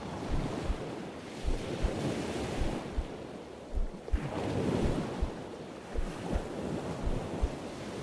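Gentle surf washing on a beach, swelling about halfway through, with a slow heartbeat thumping in pairs (lub-dub) about once a second beneath it.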